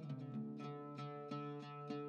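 Background music: a plucked string instrument picking a melody, about three or four notes a second, over a held low note.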